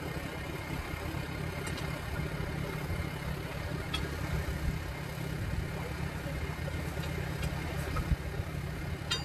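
Steel tire irons being worked against the bead and steel rim of a large backhoe tire, giving a few faint metal clinks over a steady low rumble.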